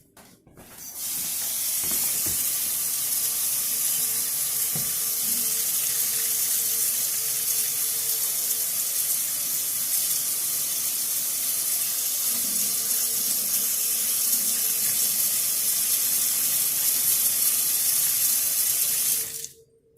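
Kitchen tap running steadily while hands are washed under it; the water comes on about a second in and is shut off suddenly near the end.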